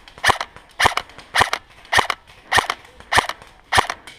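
Airsoft gun firing steady single shots, a sharp crack about every 0.6 seconds, seven in a row.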